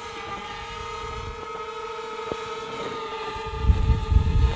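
Small quadcopter drone's propellers whining at a steady pitch, slowly growing louder. About three and a half seconds in, a loud low rumble joins.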